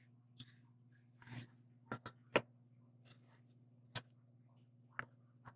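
Faint scattered clicks and taps from V-pack hydraulic cylinder seal rings being handled, about eight in all, the sharpest about two and a half seconds in, over a steady low hum.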